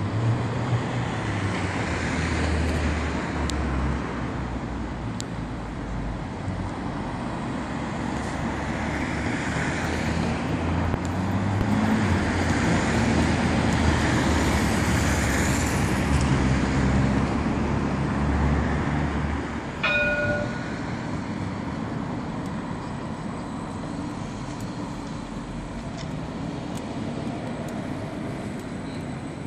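Street traffic rumble while an Edinburgh tram, a CAF Urbos 3, waits at the stop. About two-thirds of the way in a short pitched chime sounds, then the tram pulls away with a faint steady high electric whine.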